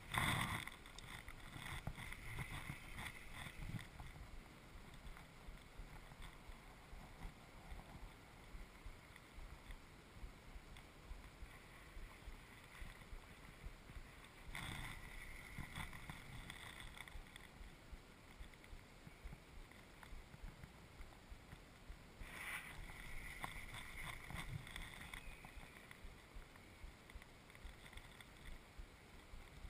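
Faint, muffled handling noise of a spinning rod and reel on a body-worn camera, with small repeated ticks and short louder rustles of clothing against the camera at the start, about halfway through and again about three quarters of the way in.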